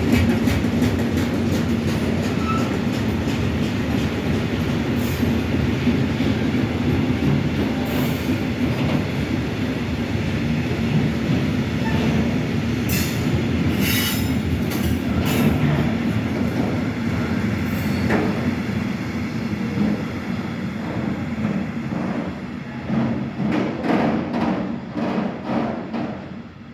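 Loaded Eas open freight wagons rolling past on steel wheels: steady rumbling with regular clicks over the rail joints and a few short high wheel squeals. Near the end the rumble falls away and the clicks come in separate groups.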